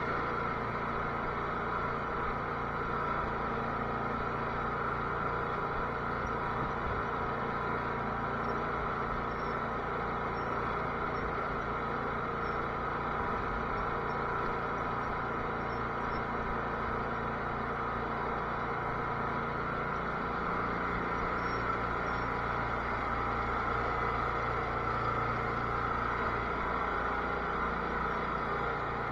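Cub Cadet garden tractor's engine running steadily, a continuous even drone.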